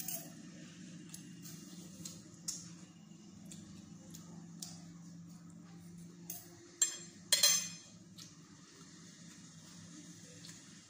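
Metal spoon and fork clinking and scraping on a ceramic plate of rice: scattered sharp clicks, the loudest a cluster about seven seconds in, over a low steady hum.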